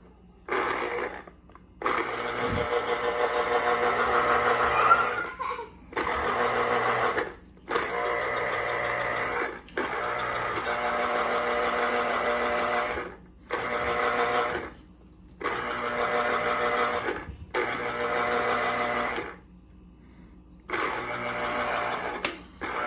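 Electric citrus juicer's motor running in repeated spurts of one to four seconds with short pauses between, about nine times, as orange halves are pressed onto the spinning reamer cone. The cone turns one way, then the other, to squeeze out the juice.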